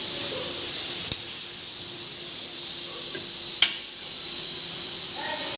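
Steady high-pitched hiss, with a faint click about a second in and a sharper click about three and a half seconds in.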